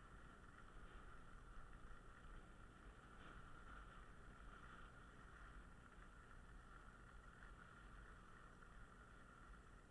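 Faint, steady hiss of sliding down a groomed snow piste, with no distinct events.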